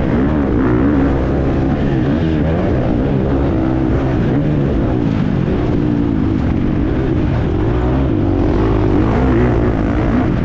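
Husqvarna FC350 single-cylinder four-stroke motocross bike ridden hard: the engine note keeps rising and falling as the throttle is opened and closed through the track's sections.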